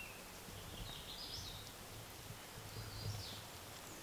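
Songbirds singing: two short, high warbled phrases, one about a second in and one about three seconds in, over a faint low background rumble.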